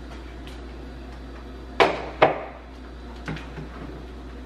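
Two sharp knocks about half a second apart, then a couple of lighter clinks: a glass bowl being set down on the kitchen countertop.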